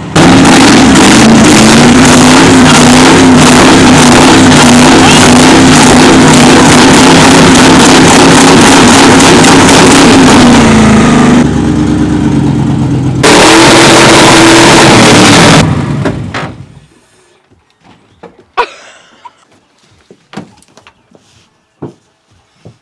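1999 Ford F-150's engine revved hard and held at high revs, very loud. It eases off briefly about 11 seconds in, revs up again slightly higher, then drops off about 16 seconds in. A few faint knocks follow.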